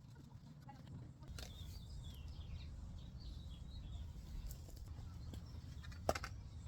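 Birds chirping faintly over a low steady outdoor rumble, with a few light clicks of metal parts being handled and one sharp click near the end.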